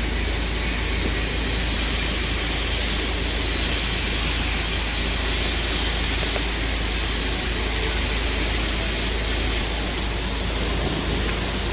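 Steady machine noise: a continuous hiss over a low hum, with a faint high steady tone, unchanging throughout.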